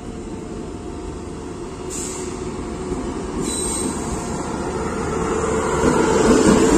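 Express passenger train approaching on the rails, its rumble growing steadily louder and swelling near the end as it draws close.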